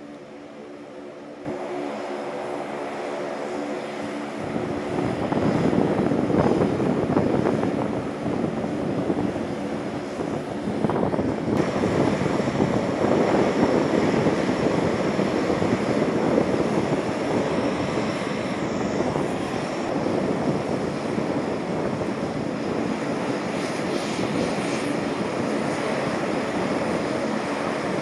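Several C-130 Hercules four-engine turboprop transports taxiing together, their engines and propellers running in a steady drone. It starts as a quieter hum with steady engine tones, then grows much louder a few seconds in and stays loud.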